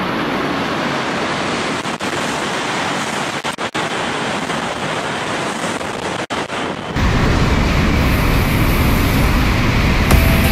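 Shinkansen high-speed trains (an E5 series, then an N700 series) passing through stations at speed: a steady rushing of air and wheels on rail. About seven seconds in, the rush turns suddenly louder and deeper.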